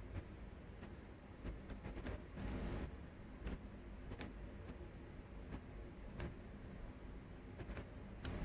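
Light scattered clicks of a piston ring being spread by hand and slipped into its groove on a new two-stroke piston, with a brief scraping rustle about two and a half seconds in.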